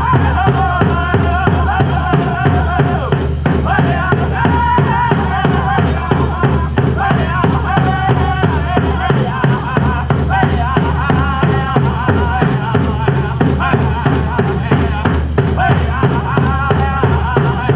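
Powwow drum group singing in high, wavering voices over a steady, even beat on a big powwow drum: a chicken dance song in progress.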